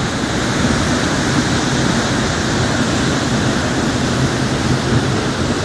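Waterfall plunging into a rocky pool: a loud, steady rush of falling water.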